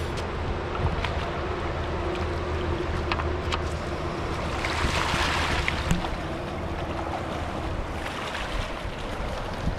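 Shallow river water running over a stony bank, with wind buffeting the microphone as a low rumble. There is a short burst of splashing about five seconds in, and a few faint clicks of stones.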